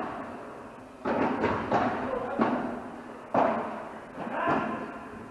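Padel rally: about half a dozen sharp hits of the ball off rackets, court and walls, spaced half a second to a second apart, each with a short echo.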